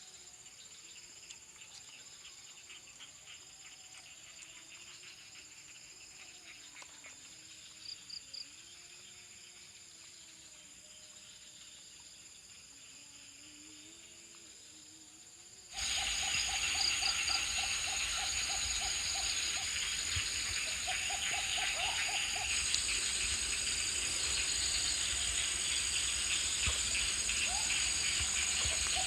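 Forest insects, crickets among them, chirring steadily over a thin high-pitched whine, at first faint. About halfway through, the sound cuts abruptly to a much louder, denser chorus, with several quick trains of low, rapidly pulsed animal calls.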